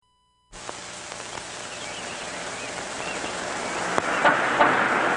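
City street ambience fading in: a steady hiss of traffic that grows louder, with faint chirps and a few sharp clicks. Short car-horn toots come near the end.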